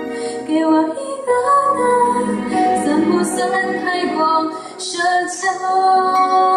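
A woman singing a Mandarin pop song into a handheld microphone, over instrumental backing.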